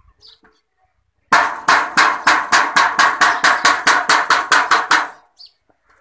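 Rapid, even strikes on a metal oil tin being cut open, about five a second, starting about a second in and stopping sharply near the end.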